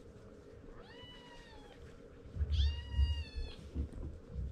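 A kitten mewing twice in a high, thin voice: a short mew about a second in, then a longer, louder one about two and a half seconds in, with low thumps around the second mew.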